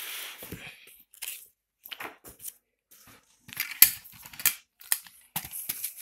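Pages of a thick paperback textbook being flipped and handled: irregular paper rustles and crinkles, with a few sharper, louder page snaps in the second half.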